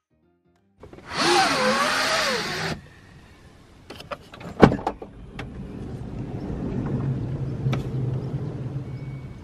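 A camper van's sliding door rolled open, a loud scraping run of almost two seconds with a wavering squeal, that stops abruptly. A sharp clunk follows a few seconds later, then a steady low hum.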